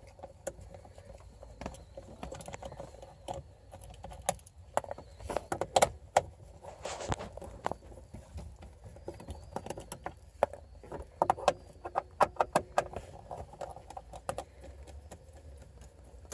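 Scattered clicks, taps and rattles of a nut driver and the plastic steering column cover as screws are taken out of the cover, with a short scraping rustle about seven seconds in.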